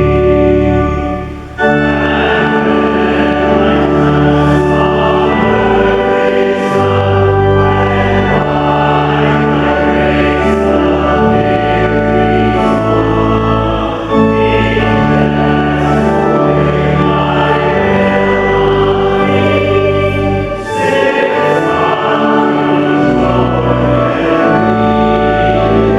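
A congregation singing a hymn in unison with organ accompaniment, in long held phrases with a brief breath between lines about a second and a half in.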